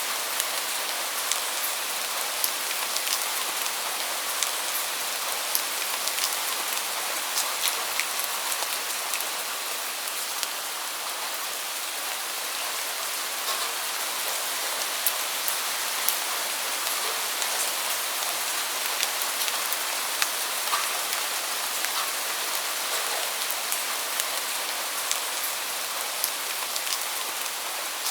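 Steady rain falling: an even hiss with many small, sharp drop ticks scattered through it, and little low rumble.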